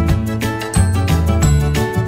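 Background music with a steady beat over a low bass line.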